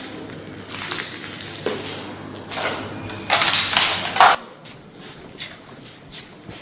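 Crunching and clattering of debris in a vandalized office, heard through a played-back phone video. The loudest, a harsh scrape of about a second, comes about three and a half seconds in, followed by scattered light clicks.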